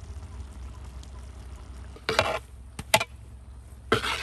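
Metal ladle scraping through cooked rice in a large aluminium pot, with two sharp knocks against the pot about three seconds in and another scrape near the end.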